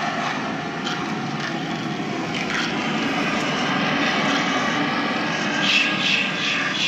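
Two Gemmy Jason Voorhees animatronic props running together, with a steady mechanical drone from their motors and gears as their heads and arms move.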